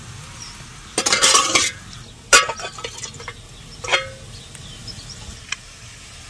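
A steel spoon and steel utensils scraping and clinking as boiled taro is lifted out of a pressure cooker onto a steel plate: a short scrape about a second in, a sharp click, then a ringing metal clink near four seconds and a light tick after it.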